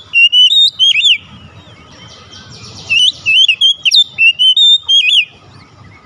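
Oriental magpie-robin (kacer) singing loud runs of quick whistled notes. The song pauses about a second in, a short raspy buzz follows, and a second run of whistles ends about five seconds in.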